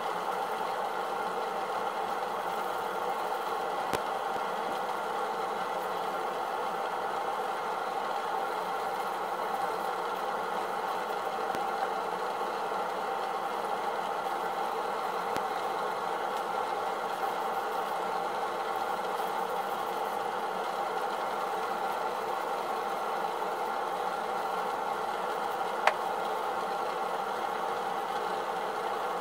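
A steady mechanical hum that does not change, with a single sharp click near the end.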